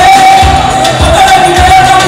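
Loud music with a steady bass beat and a voice singing held notes.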